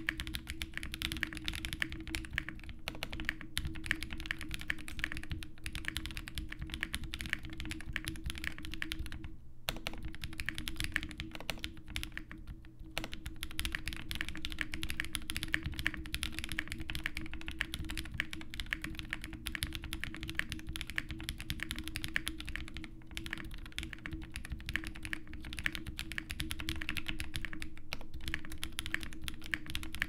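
Continuous fast typing on a Zoom65 mechanical keyboard fitted with PE foam, with lubed Durock POM linear switches, WS stabilizers and GMK Redacted ABS keycaps: many key clicks a second. There is a short pause about nine and a half seconds in.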